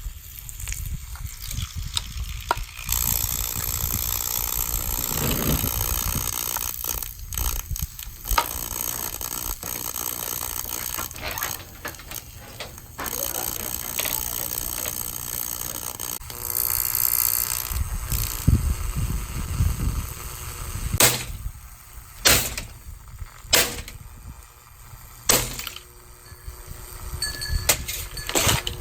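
Plastic box fan being smashed and broken apart: cracking, crunching and scraping, then a string of sharp blows in the last third.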